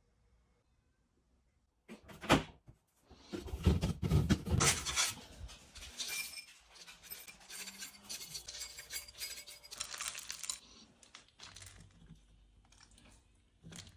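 Dishes and bowls clattering and clinking, with sharp knocks, as they are handled and set down. It starts about two seconds in, is busiest in the middle, and thins to quieter handling noises near the end.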